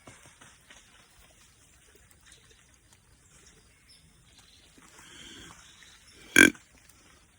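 One short, loud grunt from a deer grunt call about six seconds in, over faint rustling in quiet woods.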